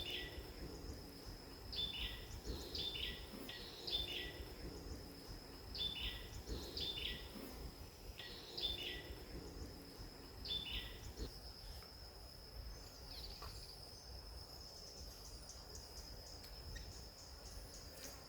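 Forest ambience: a steady, high insect drone, with a bird repeating a short call that falls in pitch about ten times, stopping about eleven seconds in.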